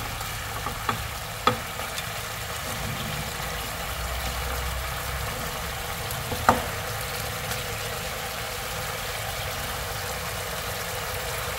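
Fish-sauce glaze sizzling steadily in a nonstick wok as fried fish balls, sausage and fish-cake strips are slid in from a glass bowl with chopsticks. A few light knocks of chopsticks and food against bowl and pan in the first two seconds, and a sharper one about six and a half seconds in.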